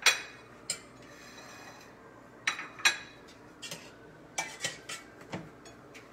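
A metal spoon clinking against a saucepan while sauce is spooned out: a sharp clank right at the start, then several lighter, irregular clinks.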